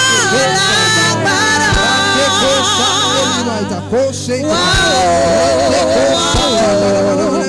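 Gospel worship music: a voice sings long, wavering held notes over a steady, low sustained accompaniment.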